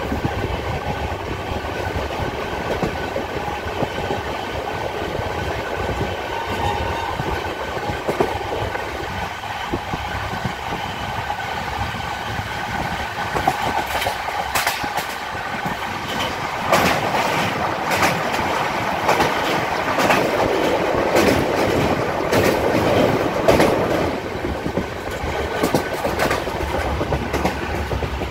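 Passenger train running at speed, heard from inside the coach: a steady rumble and hum, with the clickety-clack of the wheels over rail joints. About halfway through the clatter grows louder and denser, with quick runs of clicks.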